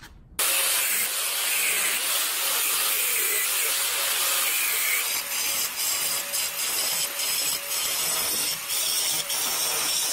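Corded angle grinder cutting into the floor edge: a loud, continuous grinding that starts about half a second in, dipping briefly several times in the second half as the disc bites and eases.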